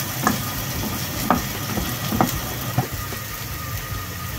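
Diced mushrooms sizzling in a frying pan while a wooden spatula stirs them and scrapes them out of the pan, with four short scrapes and clicks about a second apart.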